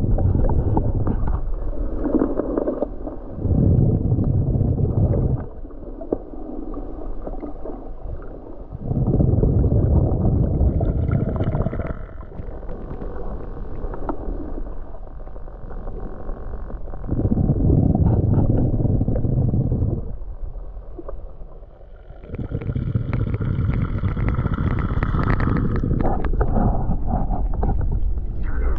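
Muffled underwater water noise heard through a submerged action camera, swelling and fading every few seconds.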